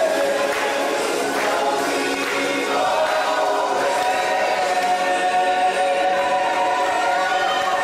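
A choir singing with the show's music, settling into a long held chord from about three seconds in.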